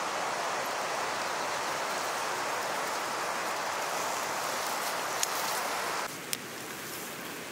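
Steady rain falling on wet vegetation, an even hiss that cuts off abruptly about six seconds in.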